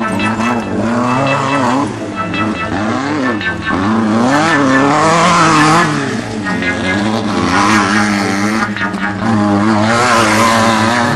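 Off-road race vehicles' engines revving hard, their pitch repeatedly rising and falling as they are driven, with a rushing noise swelling around the middle and again near the end.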